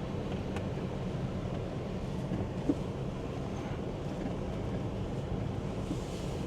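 Kubota tractor's diesel engine running steadily while driving, with a single short knock about two and a half seconds in.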